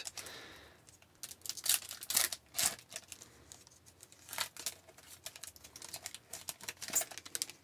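A trading-card pack wrapper being torn open and crinkled by hand: an irregular run of short, sharp crackles and rustles.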